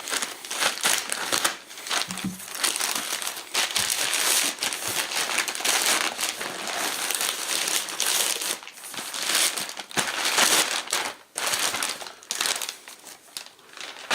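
Plastic mailing bag being handled and crumpled, with irregular crinkling and rustling.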